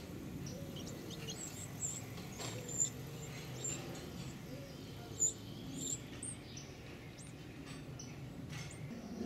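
Winter wren nestlings begging for food at the nest box: short, very high-pitched chirps repeated at irregular intervals, the loudest about three and five seconds in.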